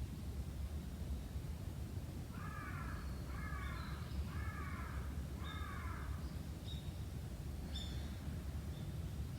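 A crow cawing four times in quick succession, with small birds chirping faintly and a steady low rumble underneath.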